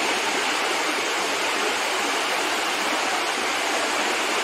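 Steady rushing of a flooded river running high and rough.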